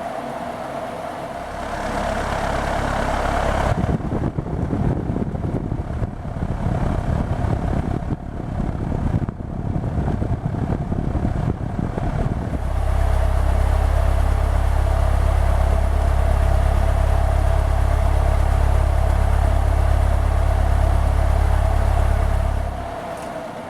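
Moss Caribbean Breeze 36-inch ceiling fan running fast, with a steady motor hum under a loud low rush of its airflow. The rush is uneven and gusty for several seconds, then holds steady and strong, and drops away near the end.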